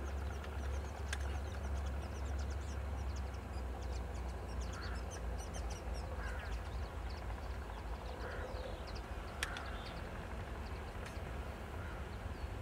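Low steady rumble of ST44 (M62) diesel locomotives, with two-stroke V12 engines, working a freight train in the distance. Over it, birds chirp and give short calls every second or two.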